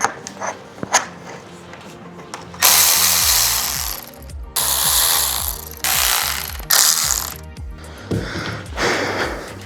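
Protective packaging being pulled and torn off a new bicycle: a few light clicks, then five loud, rough rustling and tearing bursts of half a second to a second and a half each. Background music plays underneath.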